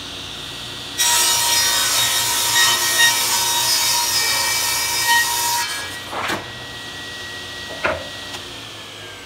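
Craftsman table saw spinning free, then ripping a plywood panel, the cut loud and lasting about four and a half seconds from a second in. Once the blade clears the wood the saw spins free again, with two knocks, and near the end its whine starts to fall as it winds down.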